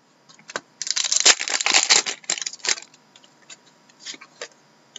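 Cardboard trading cards being flicked and slid across a stack by hand: a dense run of papery clicks and snaps lasting about two seconds, then a few scattered single clicks.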